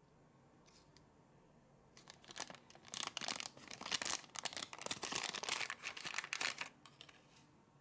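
A small plastic-foil Konapun whipped-cream powder sachet is crinkled and torn open by hand. The crackling rustle starts about two seconds in and stops shortly before the end.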